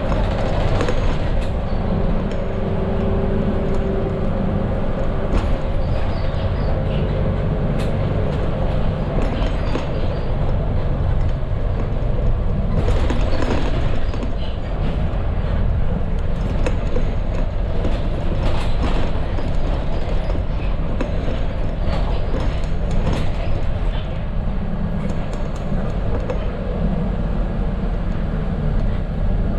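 Mercedes-Benz OF 917 medium bus's front-mounted diesel engine and road noise heard from the driver's cabin while driving, a steady low drone with scattered rattles and knocks from the cabin.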